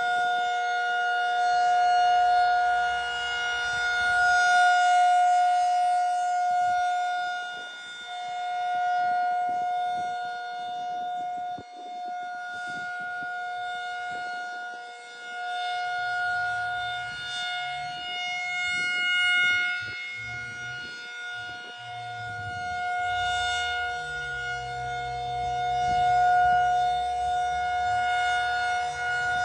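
Federal Signal 2001 rotating tornado siren sounding a steady alert tone: a loud, constant-pitch two-note chord that swells and fades every several seconds as the siren head rotates.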